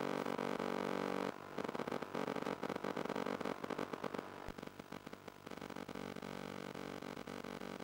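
Steady electrical buzz with crackling static and dropouts over the FPV plane's radio video-link audio. It weakens about four and a half seconds in and carries on fainter.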